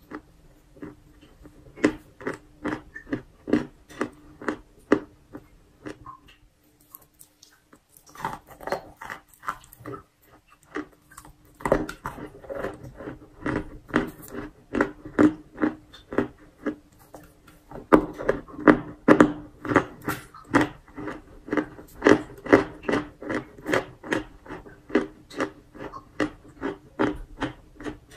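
Close-miked chewing and crunching of a mouthful of chalk, in an even rhythm of about two to three chews a second. The chewing pauses briefly twice in the first half and is louder and crunchier in the second half.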